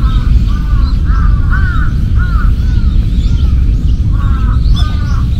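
Crows cawing in a quick series, about two short caws a second, with a brief break a little past the middle, over a steady low rumble.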